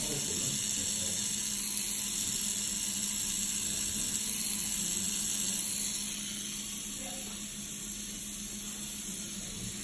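Tattoo machine running steadily under heavy hiss, a constant low hum, dropping slightly in level about six seconds in.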